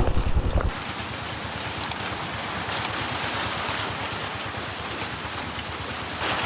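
Heavy monsoon rain falling steadily. A motorcycle engine runs for the first moment and cuts off abruptly under a second in.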